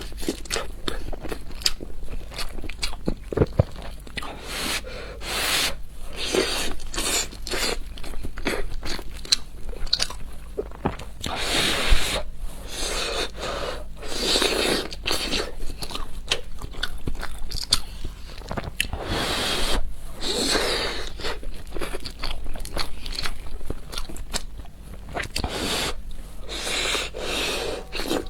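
Close-miked eating: repeated crunchy bites and chewing, with many short crackling clicks running on throughout.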